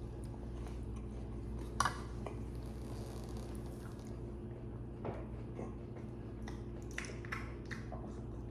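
Quiet eating sounds at a table: chewing, with a few short clicks of cutlery or dishes about 2, 5 and 7 seconds in, over a steady low hum.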